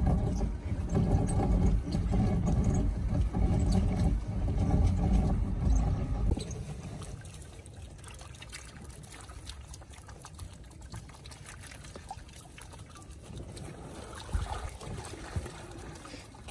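Water pouring and dripping off a shrimp net as it is hauled by hand out of the river into a boat. It is heavy for about the first six seconds, then drops to quieter dripping with small knocks of the net and catch.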